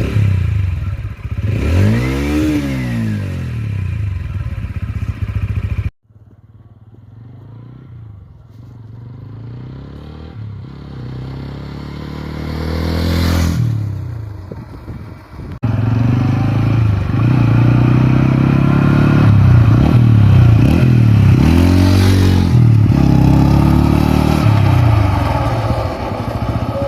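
TVS Ronin 225's single-cylinder engine running through its stock exhaust, revved up and back down over idle. Partway through the sound drops suddenly to a quieter stretch that grows louder, peaks and falls away. It then jumps back to close, loud revving with several blips.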